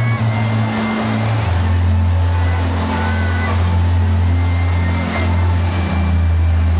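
Dance music played loud over a PA system, heard mostly as long held bass notes that change pitch a couple of times, over the murmur of a large crowd.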